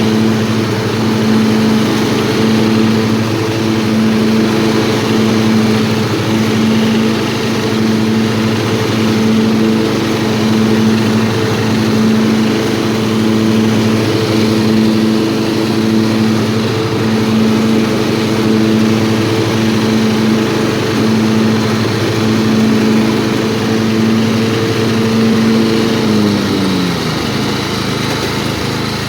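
Old riding lawnmower's engine running steadily with a regular pulsing beat; near the end its pitch drops as the engine slows.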